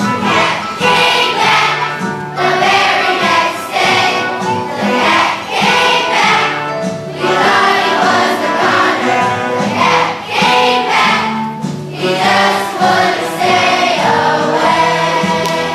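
A children's choir singing together over musical accompaniment, in a continuous run of sung phrases.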